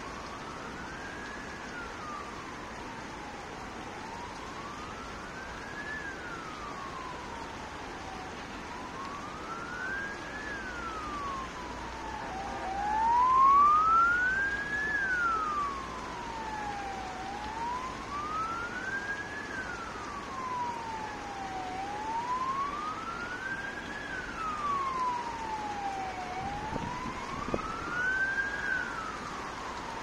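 Emergency vehicle siren in a slow wail, its pitch rising and falling about every four and a half seconds, growing loudest near the middle and staying on to the end, over a steady background hum.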